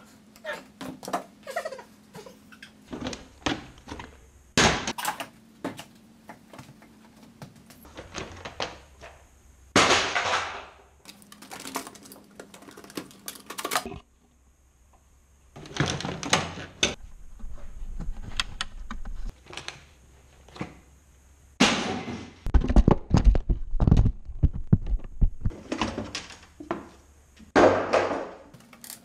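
Repeated thunks, knocks and clatter of plastic trim panels, hoses and tools being pulled off and handled in a car's engine bay, in separate bursts with several abrupt breaks.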